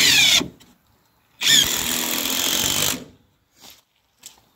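Power drill driving screws into wood. It runs twice: a short burst at the start, then a longer steady run of about a second and a half.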